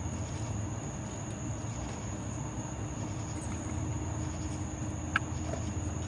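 Quiet steady low hum under a steady high-pitched trill, with one small sharp click about five seconds in from the A/C oil charge can and refill hose being handled.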